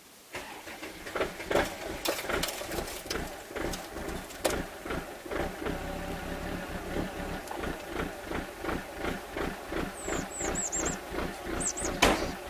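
Kubota L1455D diesel tractor engine starting from cold and settling into an evenly pulsing idle. A short sharp knock sounds near the end, and a small bird chirps a few times.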